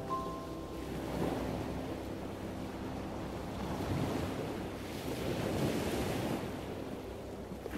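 Waves washing in and out with wind, swelling and ebbing every second or two. A last held note of music dies away about a second in.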